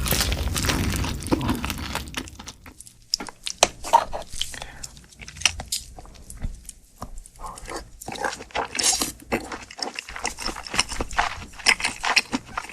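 Close-up eating sounds: a person chewing, with many short wet clicks and smacks of the mouth, denser and louder in the first couple of seconds.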